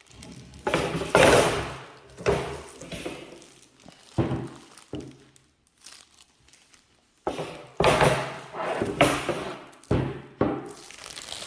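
Flat-pack desk boards and parts being handled and set down: a run of irregular thunks and knocks, with scraping and rustling between them.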